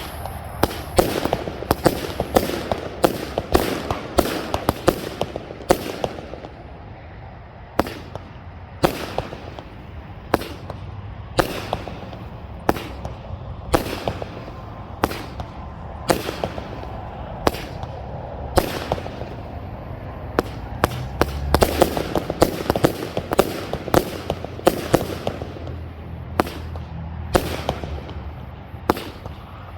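Agent of Boom 500-gram consumer firework cake firing shot after shot: a long string of sharp, loud salute-like reports, about one or two a second, with a short lull about six seconds in.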